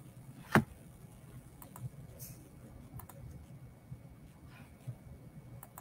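A few scattered clicks at a computer. One sharp click about half a second in is much louder than the rest. A low steady hum runs underneath.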